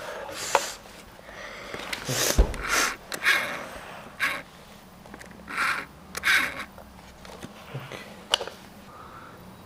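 A few short breathy sniffs, with light clicks and a soft thump as small plastic toy parts are handled and set down on a wooden floor.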